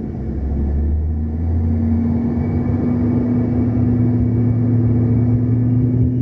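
Airliner engines running with a steady low rumble and hum, getting a little louder about a second in.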